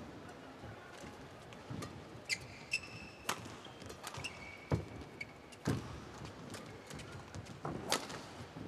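Badminton rally: rackets strike the shuttlecock about every one to two seconds, with short high squeaks of court shoes on the mat between the shots.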